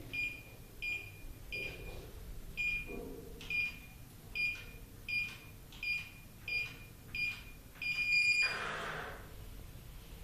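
D-Lock DL2000 digital door lock keypad beeping as a code is entered: about ten short, evenly spaced high beeps, one per key press. Near the end comes a longer, louder confirmation tone, then about a second of whirring as the lock releases.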